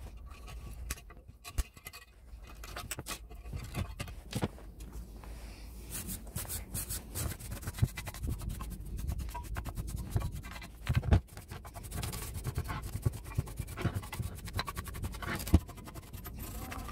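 A few snips of side cutters cutting wire, then a steel wire brush scrubbing heavy rust off a cast-iron grinder body in rapid scratchy strokes.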